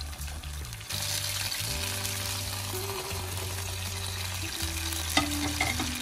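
Hot oil sizzling in a frying pan with sliced shallots, the sizzle jumping louder about a second in as fried tofu cubes are slid in from a plate. A single sharp knock comes a little after five seconds.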